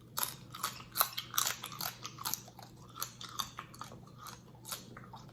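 Close-miked mouth sounds of a person chewing seafood boil food, a run of irregular wet clicks, the loudest about a second in.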